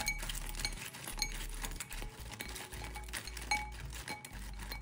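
Chopsticks and a spoon clinking irregularly against a glass mixing bowl while tossing sauce-coated fried dough pieces.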